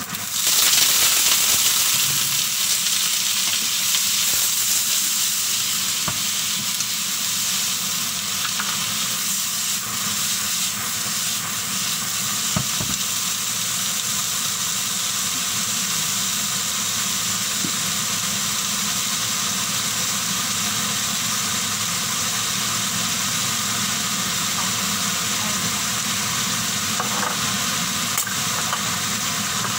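Broccoli and carrots tipped into a hot oiled wok, setting off a burst of sizzling that is loudest for the first couple of seconds, then settles into a steady frying hiss.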